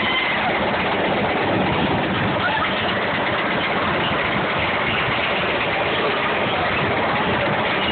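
Spinning roller coaster car being hauled up the lift hill: a steady mechanical rumble from the lift and the ride.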